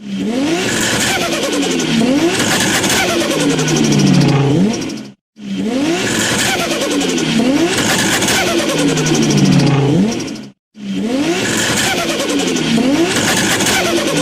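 Car engine accelerating hard, its revs climbing and falling back again and again as if shifting through gears. The same roughly five-second burst plays three times with a brief silence between each.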